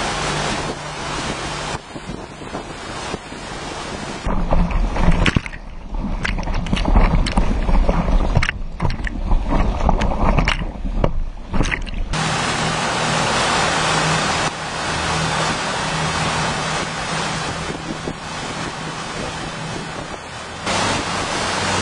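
Rushing, splashing water from a sports boat's wake over a faint steady hum from the boat's engine. In the middle stretch wind and spray batter the microphone with heavy rumbling gusts and splashes.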